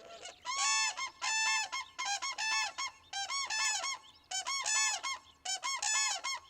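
Common cranes calling: repeated loud trumpeting calls, several birds overlapping, in bursts about once a second that start about half a second in.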